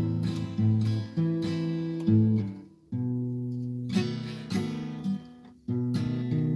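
Acoustic guitar strummed in a slow run of chords, each left to ring and fade. The sound stops briefly twice, about three seconds in and again near the end.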